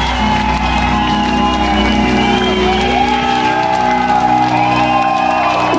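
Live rock band playing loud amplified music, with a melodic line that bends up and down in pitch over sustained chords. The deep bass fades out about three seconds in.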